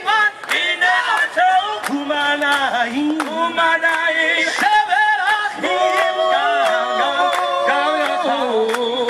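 A group of people singing a Shabbat table song together, unaccompanied, in long held melodic phrases.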